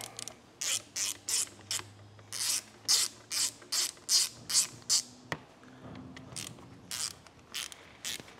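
Socket ratchet being worked back and forth on the starter motor's through-bolts, its pawl clicking in short rasping bursts about two a second, with a brief pause about three quarters of the way in.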